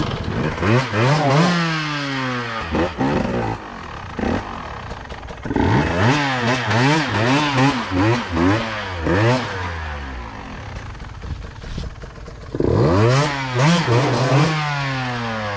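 Two-stroke dirt bike engine revving up and down in quick throttle blips, in three bursts with steadier running between.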